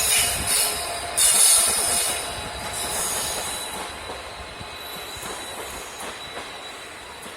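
Passenger train running past, its wheels squealing on the rails with a thin steady high squeal over the rumble and hiss of the wheels. It surges about a second in, then grows steadily fainter.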